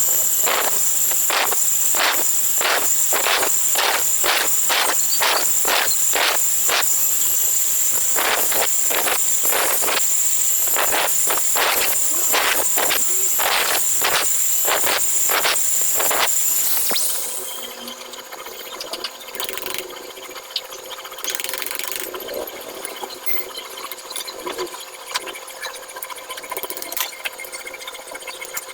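Angle grinder converted with a washing machine spindle into a makeshift milling tool, running with a loud, steady high-pitched whine. Repeated rasping strokes come a little under twice a second as it cuts. The grinder shuts off about 17 seconds in, leaving quieter scraping and handling noises.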